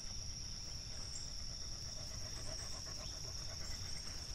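Dog panting, with a steady high chirring of insects, crickets, behind it.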